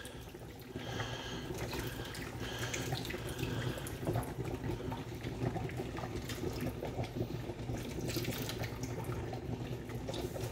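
Chicken broth poured in a steady stream from a carton into a hot skillet of tomatoes, garlic and shallots, splashing into the pan. This is the broth going in to form the base of the sauce.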